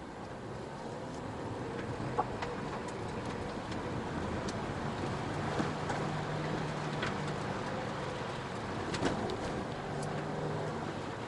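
A car driving slowly over a rough gravel and dirt track: a low engine hum and tyre noise, with scattered sharp clicks of stones under the tyres.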